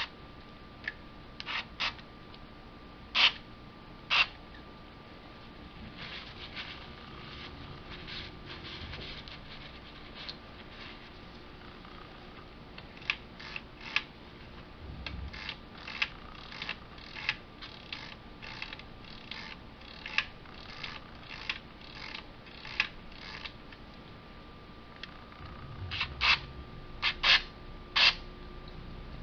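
Short hissing squirts from a can of contact cleaner with an extension straw, a few near the start and a cluster of louder ones near the end. In between come many light clicks and rattles as the slide controls of a Marantz 3650 preamp are worked back and forth to spread the cleaner over corroded contacts, the cure for crackling controls.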